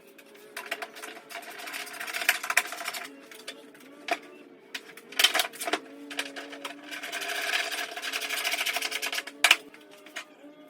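A tool running in the bolts that hold a steel fender: two stretches of fast, even clicking, a second or two each, with a few sharp metal knocks between them.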